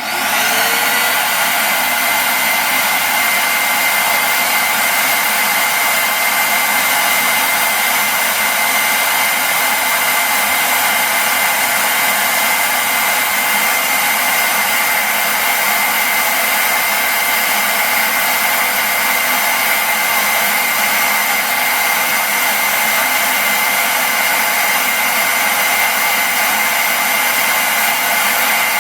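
Vacuum cleaner switched on, its motor spinning up over the first second and then running steadily with a high whine, pulling suction through a tube taped into a bicycle frame to draw a thread up the seat tube.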